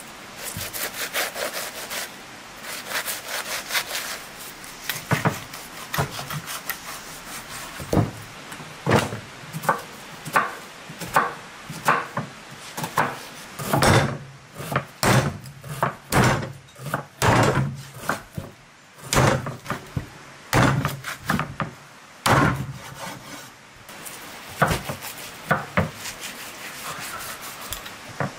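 Knife blade sawing and scraping through a raw lamb joint on a wooden cutting board, then a cleaver chopping through it in a series of sharp knocks on the board.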